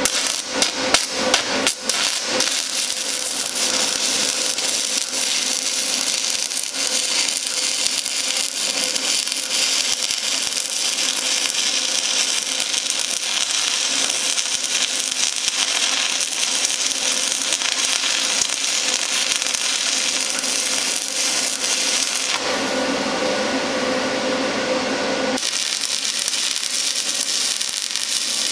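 Stick (SMAW) arc welding with a 1/8-inch 7018 rod: the arc's steady crackling sizzle, sputtering with sharp cracks as it is struck at the start. The arc breaks off for about three seconds near the end, leaving a low steady hum, then starts again.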